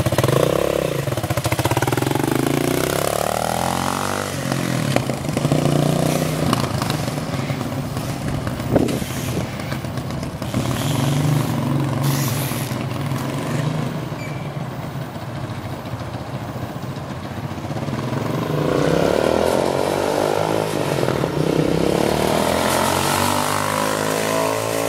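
Engine of a 250cc sport ATV running as it is ridden around, revving up and easing off. It is louder with rising and falling pitch sweeps near the start and again in the last several seconds, and fainter for a few seconds past the middle.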